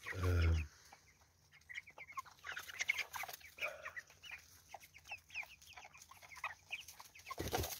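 A flock of young broiler chickens cheeping, with many short high chirps scattered throughout. A loud, short, low-pitched sound comes at the very start, and a brief rustle near the end.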